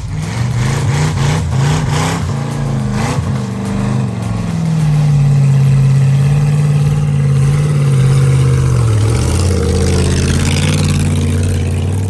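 Off-road 4x4's engine revving hard under load, its pitch climbing about four seconds in and dropping back near nine seconds, with a series of knocks and bangs in the first three seconds.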